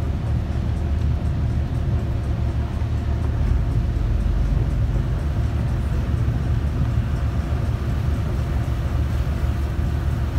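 Boat engine running steadily, a low drone heard from on board.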